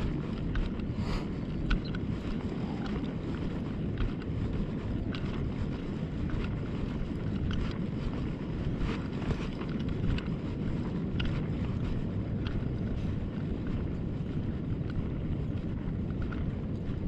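Wind buffeting the microphone outdoors, a steady low rumble, with faint scattered light ticks over it.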